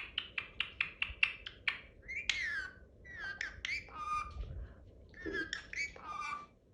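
Pet parrot calling: a quick run of short chirps, about five a second, then a series of gliding whistles and squawky, talk-like calls.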